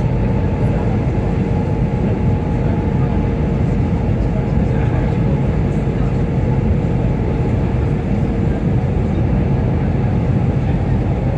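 Steady airliner cabin noise in flight: a deep, even rumble of jet engines and rushing air heard from inside the cabin, with a faint steady hum tone in it.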